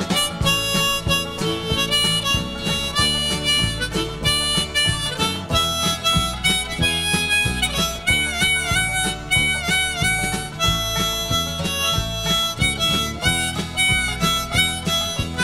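Instrumental break in a country-rock song: a harmonica plays a solo with bent and wavering notes over guitar, bass and a steady beat.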